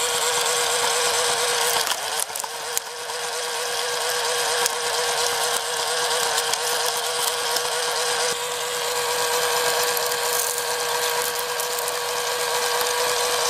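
Small electric motor of a homemade cardboard thresher model running steadily with a high whine and rattle as it threshes straw. About two seconds in there are a few sharp clicks and a brief dip in level.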